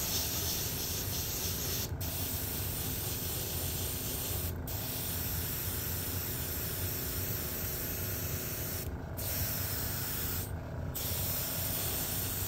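Airbrush spraying black paint through a plastic stencil: a steady hiss of air and paint that breaks off briefly four times as the trigger is let go, with a low hum underneath.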